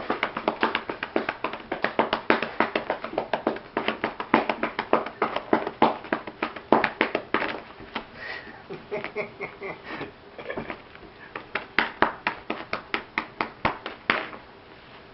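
A hand slapping a cat's back and rump in a fast run of short pats, several a second. The pats pause for about two seconds just past the middle, then resume and stop shortly before the end.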